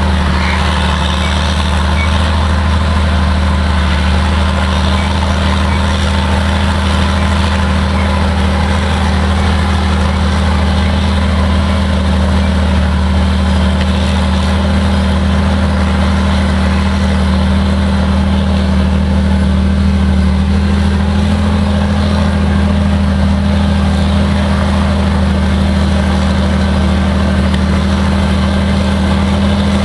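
Caterpillar 633 scraper's heavy diesel engine running at a steady, unchanging pitch as the machine works across the dirt.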